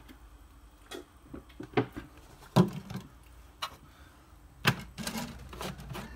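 A handful of separate short knocks and clicks, about five, the loudest a little past halfway and near the end: a plastic milk bottle and its screw cap being handled and set down on a tabletop.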